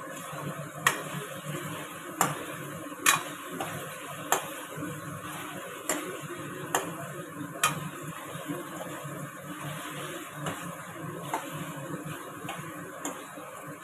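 Metal ladle stirring chicken pieces frying dry in masala in a metal kadhai, with sharp irregular clanks of the ladle against the pan over a steady sizzle. The clanks are loudest and most frequent in the first eight seconds and fainter after that.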